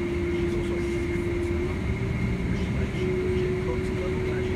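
Boeing 767-300ER engines running at taxi power, heard inside the passenger cabin as a steady low rumble with a held whining tone that shifts slightly in pitch twice.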